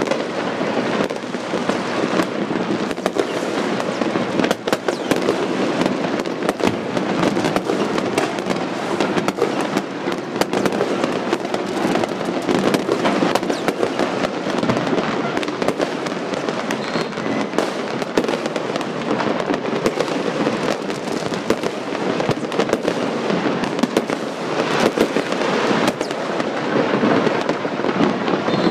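Fireworks going off all over a city at once: countless overlapping bangs and crackles merging into a continuous din with no pause.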